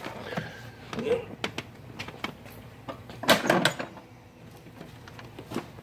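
Clicks and knocks of metal and cushion from a chiropractic table's thoracic section as the cushion is handled and lowered onto its drop mechanism, with a quick cluster of louder clanks about three and a half seconds in.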